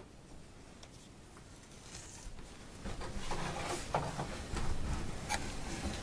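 Quiet room tone for about two seconds, then rustling and scuffing with a few light knocks: clothing and the handheld camera brushing and shuffling as a person climbs through a doorway onto a step stool.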